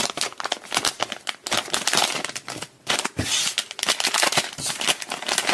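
Foil blind-bag wrapper crinkling and crackling in the hands as it is torn open, a dense run of irregular crackles.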